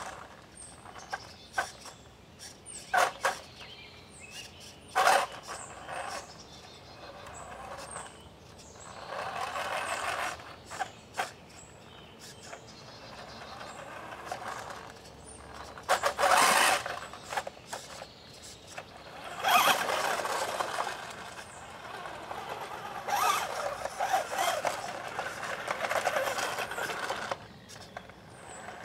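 Tamiya Midnight Pumpkin electric RC monster truck driving over dirt and leaf litter: its motor and gears whir in spells as it moves, with tyres crunching and several sharp knocks from bumps.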